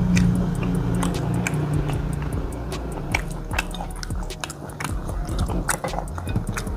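Close-mouthed and open-mouthed chewing of goat satay meat, with many short wet smacking clicks. Faint background music runs underneath.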